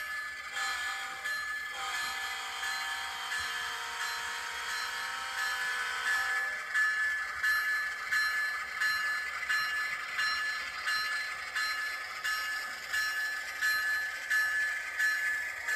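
Model train rolling past close by, its wheels clicking over the track joints about one and a half times a second under a steady high metallic ringing. A lower hum stops about six seconds in as the locomotive goes by.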